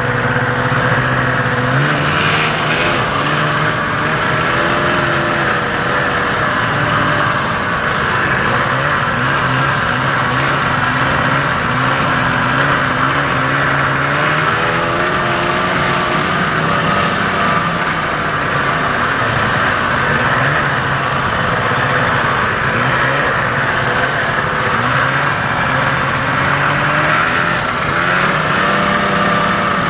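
1987 Ski-Doo Safari 377 snowmobile's two-stroke engine running steadily while warming up after a cold start, its speed stepping up about two seconds in and then wavering up and down.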